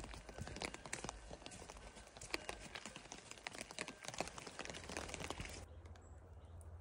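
Footsteps on a wet forest dirt trail with rain falling steadily on the surrounding trees. About five and a half seconds in, it cuts to a quieter, steadier rain with a low, steady hum.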